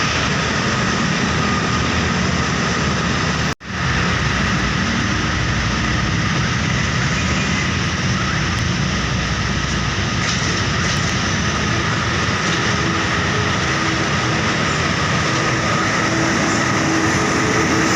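Heavy road traffic: buses and trucks running past with a steady rush of engines and tyres. The audio drops out for a moment about three and a half seconds in, and a steady engine drone comes in during the second half.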